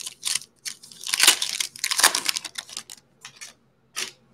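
Foil wrapper of a Panini Mosaic basketball card pack being torn open and crinkled by hand: a run of short rips and crackles, the longest about one and two seconds in, with a last one near the end.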